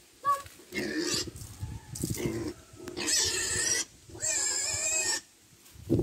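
Piglets squealing in a series of loud, shrill calls: several short ones, then two long squeals of about a second each in the second half.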